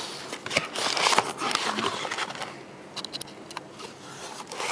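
A cardboard box being opened and handled: scraping and rustling of the flaps, with several sharp clicks and knocks.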